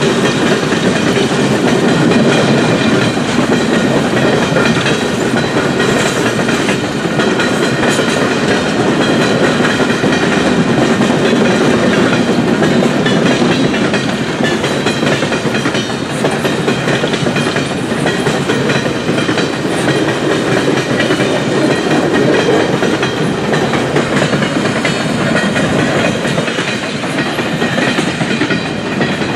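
A long coal train's cars rolling by on jointed track: a steady, loud rumble of wheels on rail with the clack of wheels over rail joints.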